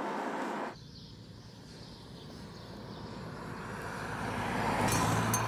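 Road and wind noise cuts off abruptly under a second in. Then a Volkswagen T-Cross compact SUV approaches and passes close by, its tyre and engine noise building steadily to a peak near the end.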